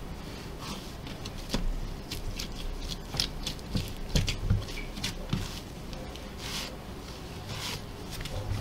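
Hands kneading a lump of dough on a floured pastry board: irregular soft thumps and squishes as the dough is pressed and folded, with dry rubbing and scraping of hands and dough against the board.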